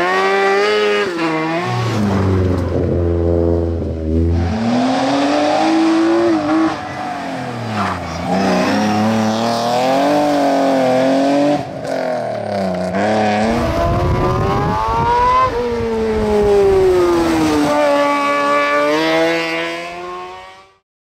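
Race car engines at full throttle, revving up through the gears and dropping between shifts and lifts as several cars pass in turn, with sudden changes where passes are cut together. The sound fades out near the end.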